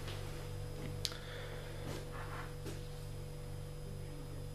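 Steady low electrical hum, with one short click about a second in and a few faint soft handling noises as small shock parts are moved over a paper towel.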